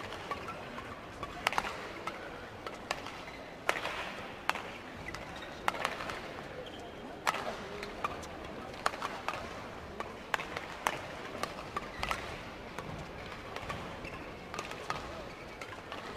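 Badminton rackets striking a shuttlecock back and forth in a long rally: sharp, crisp hits about once a second over a steady murmur from the arena crowd.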